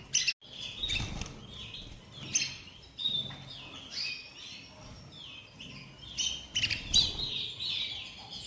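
Canaries chirping and trilling in quick short calls, with a few brief knocks or flutters in between.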